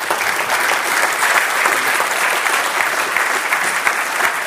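Audience applauding, a steady dense clapping that holds at an even level.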